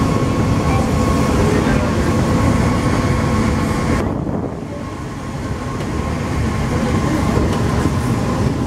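Alstom NS-16 rubber-tyred metro train running between stations, heard from inside the driver's cab: a steady running rumble with faint humming motor tones. About four seconds in, the higher hiss drops away suddenly, then builds back up over the next few seconds.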